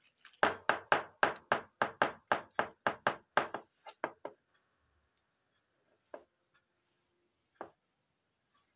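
Small plastic toy kitchenware knocked together in a quick run of about a dozen sharp taps, roughly four a second, then a few single knocks about four, six and seven and a half seconds in as a plastic toy cup is handled.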